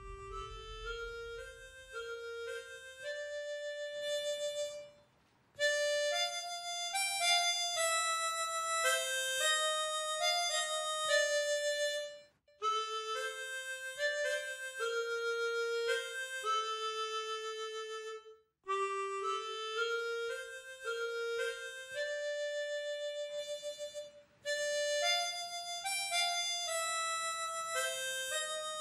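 Background music: a bright, reedy single-line melody played in phrases of held notes, breaking off briefly several times.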